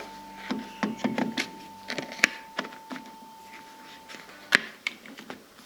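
Scattered clicks and knocks of a Type 2 charging cable and its plug being handled and pushed into a wall charger, with one sharp click about four and a half seconds in. A faint steady high tone runs underneath and stops about four seconds in.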